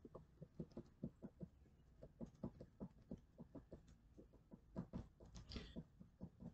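Faint pencil strokes on paper: quick, short shading strokes at about four or five a second, with a few louder strokes about five seconds in.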